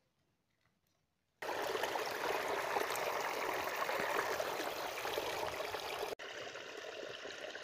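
Water from an irrigation channel pouring through a small gap in a mud bank, a steady splashing rush. It starts after about a second and a half of near silence and drops a little quieter about six seconds in.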